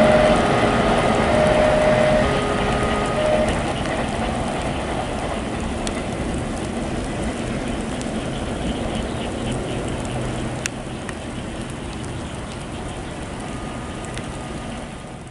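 Freight train of container wagons rolling away on the rails: a steady rumble of wheels on track that fades gradually. During the first few seconds the level crossing's warning bell sounds in repeated on-off tones.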